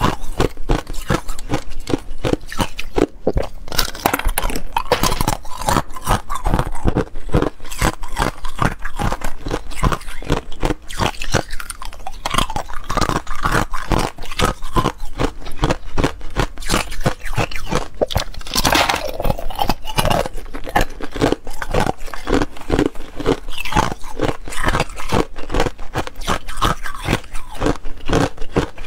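Close-up crunching and chewing of thin, brittle ice, a molded sheet of ice cubes, cracking sharply many times a second as it is bitten and chewed.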